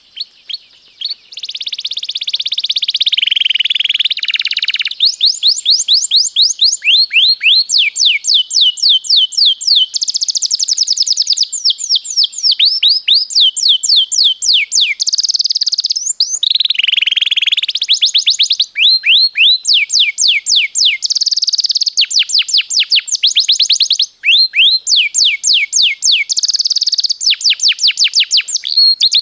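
Domestic canary singing continuously in long rolls: runs of rapid, falling whistled notes, about five a second, alternating with a few buzzy trills and broken by a couple of brief pauses.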